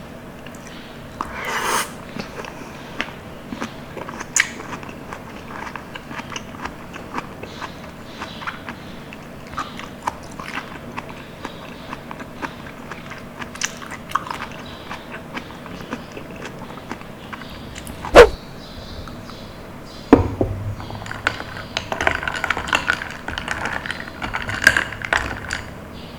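Close-miked eating sounds: chewing soft, juicy fruit with many short, sticky mouth clicks and smacks. A single sharp loud click comes about 18 seconds in, and the wet sounds grow denser over the last few seconds.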